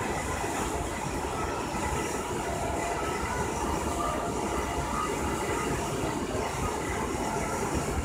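Steady rumbling background noise with no distinct events.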